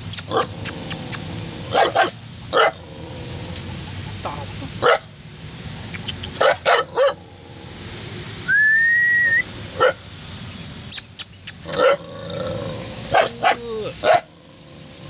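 A caged dog barking in short, irregular bursts. About nine seconds in there is a brief rising whistle.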